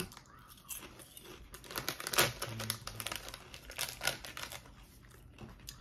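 Potato chip bag crinkling and rustling as a hand rummages inside it for chips, with scattered sharp crackles, the loudest about two seconds in.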